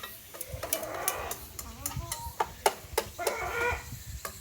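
Chickens clucking: two drawn-out calls, about a second in and again near the end, among a scatter of sharp clicks and knocks.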